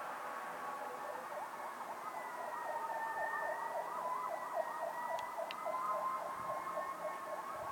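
Fire truck siren in a rapid yelp, its pitch sweeping up and down about four times a second, starting about a second in over a slower, steadier wailing tone.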